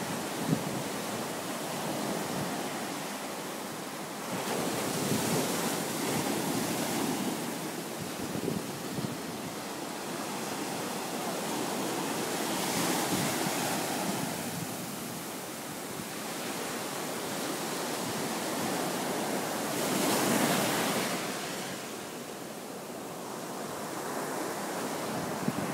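Ocean surf breaking on the beach: a steady wash of waves, swelling louder as a wave breaks about every eight seconds.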